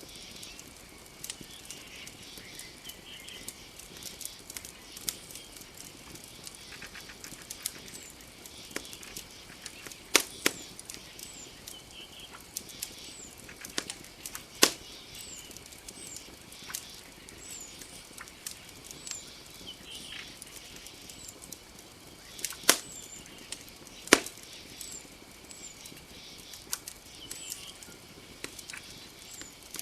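Wood campfire crackling with scattered sharp pops, four of them much louder. Short high chirps from night creatures repeat every second or two over a faint steady high drone.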